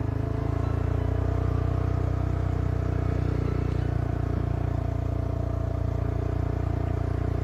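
ATV engine running at a steady speed while the quad is ridden along a muddy trail: an even, low drone with no change in pitch.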